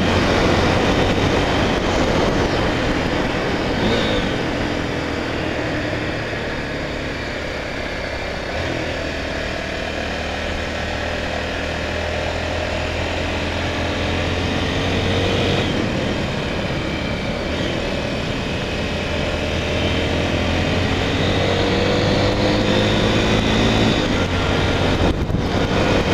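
Honda Tornado 250's single-cylinder four-stroke engine running under way, with road and wind noise. The engine pitch rises several times as the bike accelerates.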